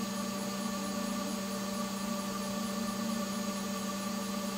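A steady machine hum with several fixed tones, like a motor running, with no distinct handling sounds.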